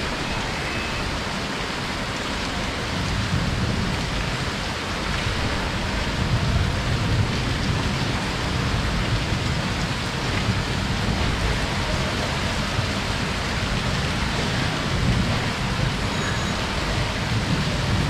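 Heavy rain falling steadily, with a low rumble underneath it.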